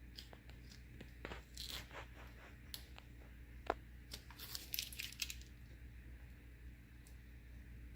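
Transfer tape being peeled carefully off a freshly applied vinyl decal, giving short rasping, tearing sounds in two spells with a sharp click between them.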